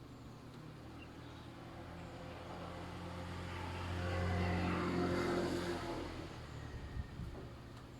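A motor vehicle passes by: its engine hum swells to a peak about four or five seconds in, then fades away, with a short knock near the end. Faint bird chirps sound in the background.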